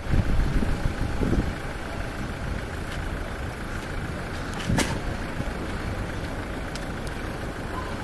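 Steady low rumble of a motor vehicle's engine and road noise, with one sharp click about five seconds in.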